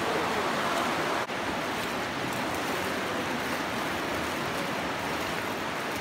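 Shallow river water rushing steadily over rocks and stones, an even hiss with a momentary dropout about a second in.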